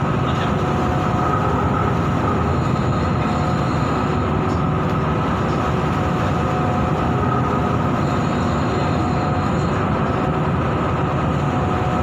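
Offshore vessel's engines and machinery running in a steady drone with faint constant whining tones, mixed with the rush of heavy seas breaking around the stern and wind on the microphone.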